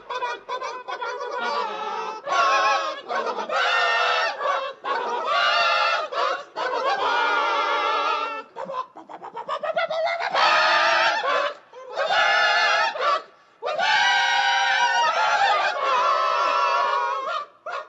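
Domestic hens squawking and cackling in a string of loud, harsh calls, each about a second long, with short breaks between.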